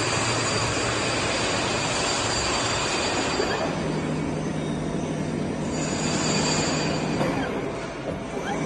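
Sanco SHM 11025R CNC horizontal boring mill running: a steady mechanical noise with thin high whines. About three and a half seconds in, a low steady hum sets in and the hiss above it eases.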